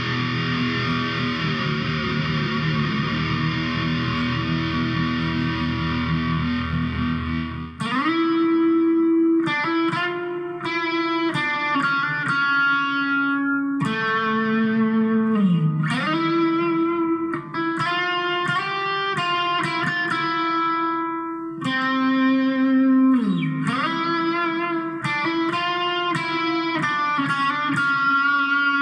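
Cort electric guitar playing. For about the first eight seconds there is a dense, sustained sound with a deep low end. After that it plays a single-note melody, with notes sliding down in pitch twice.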